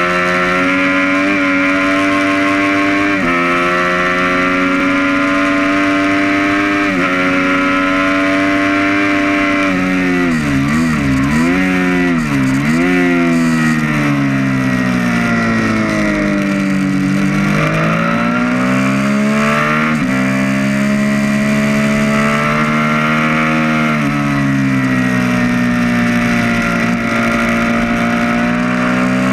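2012 Triumph Street Triple R's 675 cc inline-three engine at hard track pace, heard from on board the bike. The pitch steps with gear changes, swings up and down quickly several times about ten to thirteen seconds in, falls slowly as the bike slows for a corner, then climbs again under acceleration.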